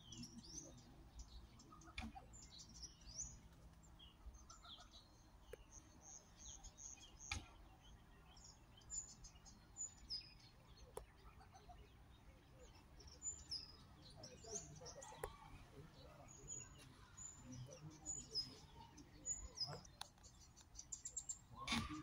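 Faint birds chirping: many short, high notes scattered throughout, over quiet background noise.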